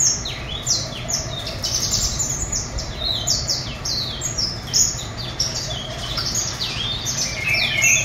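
A caged songbird, which the keeper calls a 'Taifi yasmin', singing a fast, continuous run of high whistled notes that each slide downward, with a short buzzy trill near the end. The keeper likens its song to a crested lark's. A steady low hum runs underneath.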